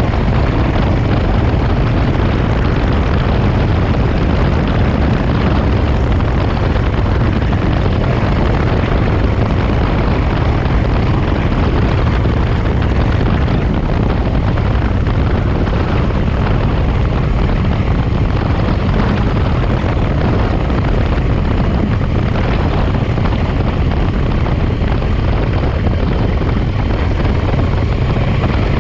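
1967 Triumph T100R Daytona's 500cc parallel-twin engine running steadily while the motorcycle cruises along the road.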